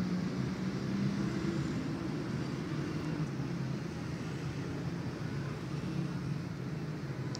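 Steady low rumbling background noise, like distant traffic or machinery, with no distinct events.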